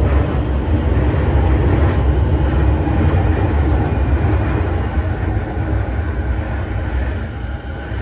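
Toei Shinjuku Line subway train running, heard from inside the carriage: a steady low rumble of wheels on track with a faint motor whine. It grows gradually quieter over the last few seconds as the train slows for the next station.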